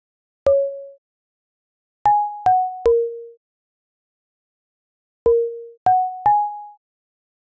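Software FM synthesiser playing short single notes of a pentatonic scale, triggered by a cellular automaton. There are seven notes in uneven groups: one about half a second in, three quick ones between two and three seconds, and three more from about five seconds. Each starts with a click and dies away within half a second, with silence between the notes.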